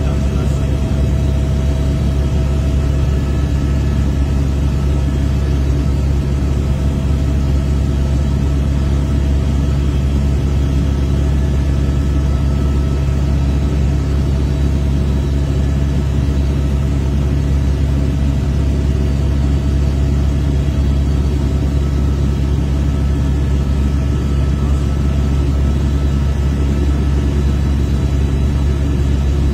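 Steady low drone of a helicopter's rotor and engine heard from inside the cabin, running evenly without change.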